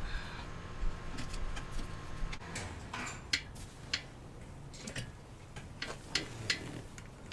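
Irregular light clicks and taps of metal parts and a screwdriver as a motorcycle turn signal assembly is fitted back onto its bracket and screwed down.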